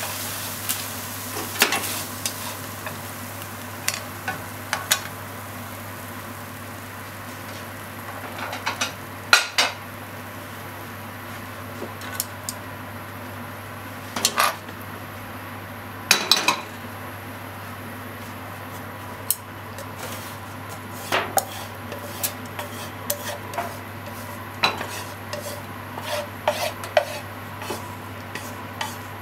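Squid and onion in ketchup sizzling in a nonstick frying pan, the sizzle strongest at the start, with a wooden spatula scraping and knocking against the pan at irregular moments. Near the end, chopsticks click against the pan and plate as the stir-fry is pushed out onto a plate. A steady low hum sits underneath.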